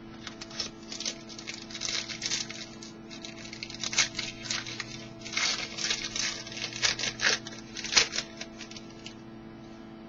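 Hockey trading cards being handled and slid against one another: a quick, irregular series of soft rustles and flicks that stops about a second before the end, over a steady mains hum.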